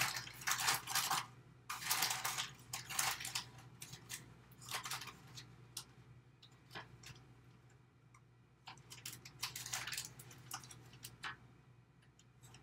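A metal measuring spoon clinking and scraping as it scoops cornstarch from its container, with rustles of the box. The sounds come in irregular clusters of short clicks and scrapes, thinning out toward the end.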